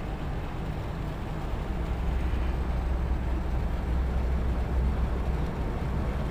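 Steady low diesel rumble of a harbour tug's engine working under load as it pulls a container ship's bow away from the berth on a tow line, getting a little louder about two seconds in.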